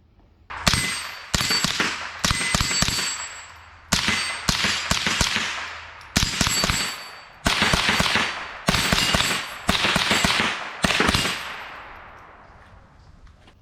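Suppressed .22 LR rifle firing about nine shots at an uneven pace over ten seconds. Each shot is followed by a metallic ringing that dies away over about a second.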